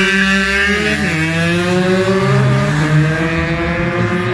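Two-stroke dirt bike engine with a 46 mm big-bore cylinder kit, revving high and accelerating hard. Its pitch drops sharply at gear changes, about a second in and again around two and a half seconds, and climbs between them.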